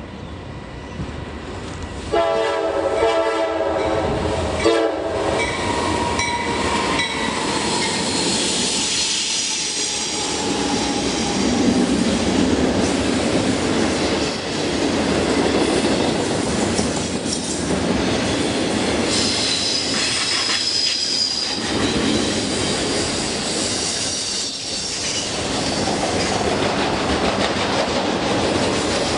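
A train's multi-chime air horn blasts about two seconds in, then the train rolls past with its wheels clattering over the rail joints and a high wheel squeal partway through.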